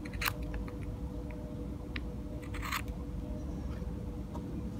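Small pruning snips cutting through a green grape rootstock shoot: two crisp snips, about a quarter second in and again about two and a half seconds in, as the shoot is trimmed to a pointed wedge for grafting. A faint steady hum runs underneath.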